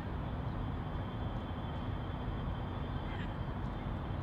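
Steady low rumble of outdoor city ambience, with faint distant voices mixed in.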